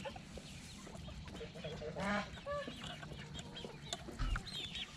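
A mixed flock of chickens, ducks and geese clucking and calling quietly, with a louder call about two seconds in and a short higher call just after.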